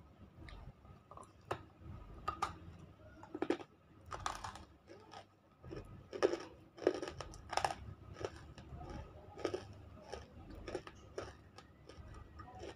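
Close-up biting and chewing of a chunk of smoked, unshaped nakumatt (edible clay). It gives an irregular string of sharp, dry crunches, which come thickest a few seconds in.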